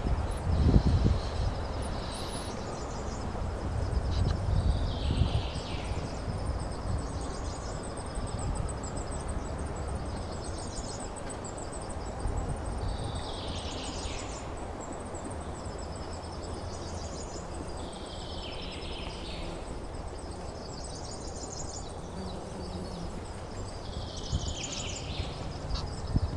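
Wild birds calling outdoors: short high phrases that fall in pitch come every few seconds, alongside a fast run of thin high notes, over a steady low rumble.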